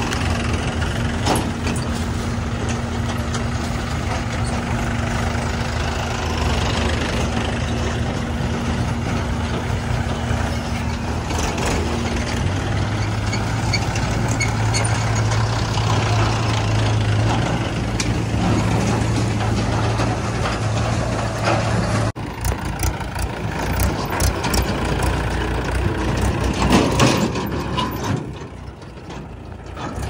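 Mahindra farm tractors' diesel engines running as the tractors drive past pulling trolleys. The engine note is steady at first, shifts to a deeper, stronger one about twelve seconds in, and changes abruptly about two-thirds of the way through.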